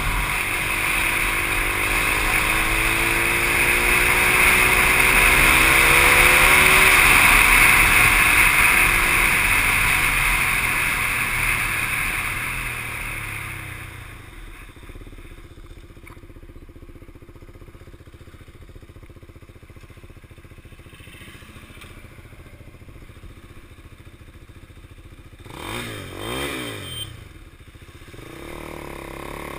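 KTM 390 Duke's single-cylinder engine under way with a loud rush of wind over the microphone, the engine pitch rising as the bike accelerates. About halfway through, the wind and engine die down as the bike slows to a low, steady running. Near the end an engine revs up and back down briefly.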